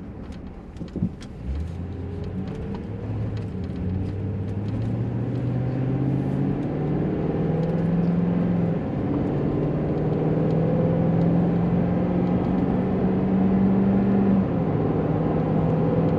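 Car pulling away and accelerating. A low engine or motor tone starts suddenly a second and a half in and climbs steadily in pitch, then eases back a little near the end.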